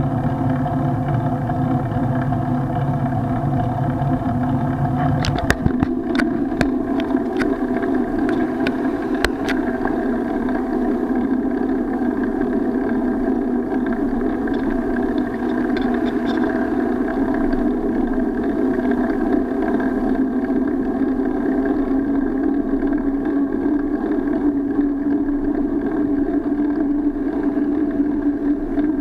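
Steady rumble and rattle of a bicycle ride, with wind noise, picked up by a bicycle-mounted action camera. The rumble shifts in pitch about five seconds in, and a few sharp clicks and knocks come between about five and ten seconds in.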